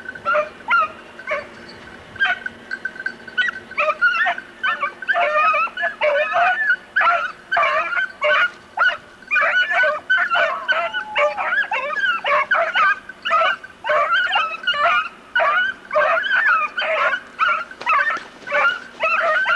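Hunting beagles baying, a run of high yelping cries that are sparse at first and then come several a second without a break from about four seconds in: hounds giving tongue while working to flush game from the scrub.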